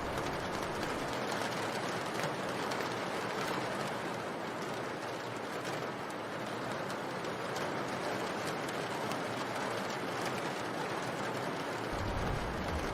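Steady rain, an even hiss with faint scattered drop ticks. A low rumble of thunder starts near the end.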